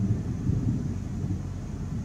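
Distant thunder rolling: a continuous low rumble with no sharp crack.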